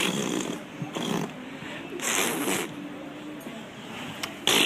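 A pet animal making short, raspy, hiss-like noises in four bursts, the last near the end.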